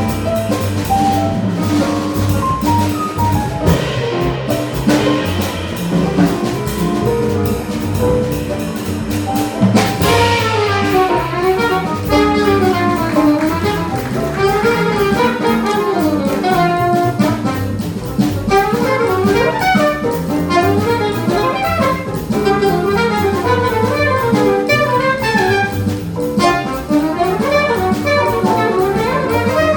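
Small jazz combo playing bebop: a fast, winding saxophone line over piano, walking bass and drums, with a cymbal crash about ten seconds in.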